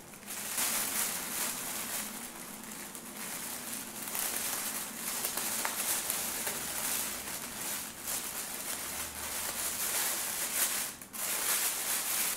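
Thin plastic roasting bag crinkling and rustling as it is gathered at the neck and closed with a plastic clip tie.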